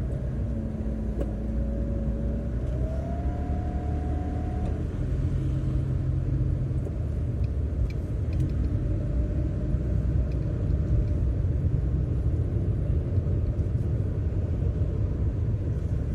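A car being driven, heard from inside the cabin: a steady low rumble of engine and road noise. A thin whine in the first few seconds rises in pitch about three seconds in and then stops.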